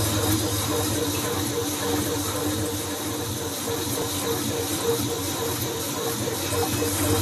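Pedal-driven generator spinning with a steady whir and a rhythmic pulse a few times a second; its low hum weakens through the middle and comes back near the end.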